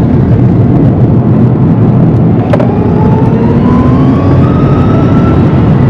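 Rimac Nevera's four electric motors whining, the pitch rising steadily as the car accelerates hard, over heavy road and tyre rumble inside the cabin. A single click is heard about halfway through.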